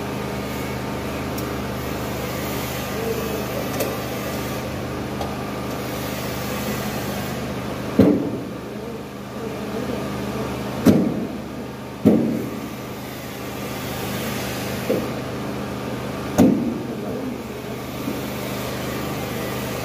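Steady mechanical hum with four sharp knocks, each ringing briefly, in the second half, from hard objects struck during work on a steel scaffold fitting structural glass.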